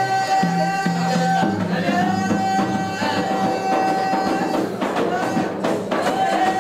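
Live wedding band music: a long held high note over drums, breaking off briefly twice.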